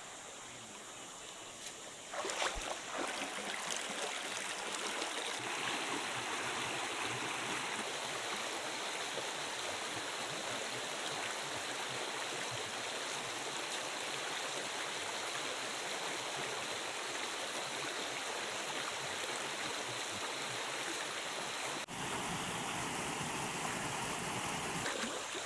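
Shallow jungle stream flowing: a steady rush of running water that starts abruptly about two seconds in and shifts in tone near the end.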